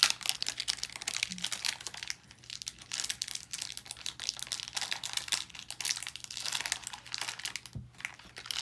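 Plastic wrapper of a hockey card booster pack crinkling as it is torn open and handled, with a short lull about two seconds in.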